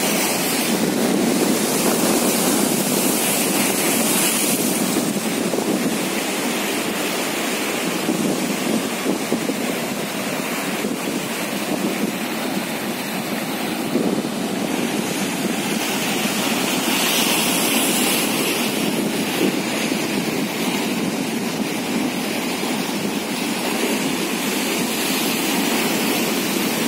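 Sea surf breaking and washing over a rocky shore, a steady rushing noise.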